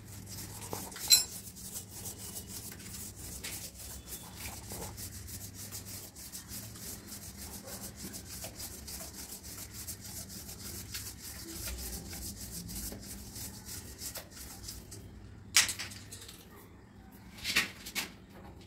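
Hand work on chrome and brass plumbing fittings: a steady fine rubbing and scratching, with a sharp click about a second in and a few more clicks near the end.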